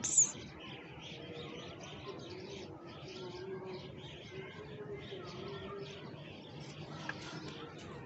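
A flock of small birds chirping together: a steady chorus of many short, overlapping calls.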